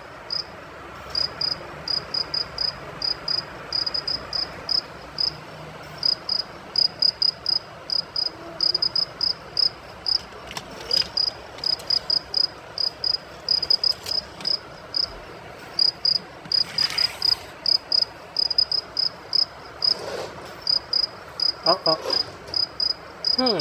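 A cricket chirping: short, high chirps on one pitch in irregular runs, with a few faint knocks.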